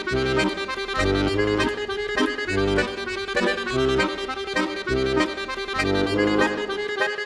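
Background music: a melodic tune over a steady bass beat.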